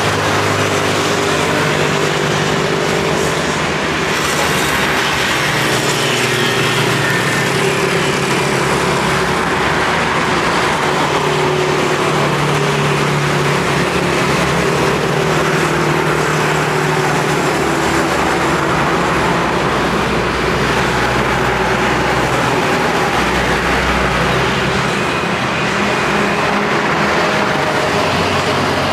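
Road traffic of cars and motorbikes going by in a continuous stream. Engine hum and tyre noise never let up, with engine tones shifting as vehicles pass.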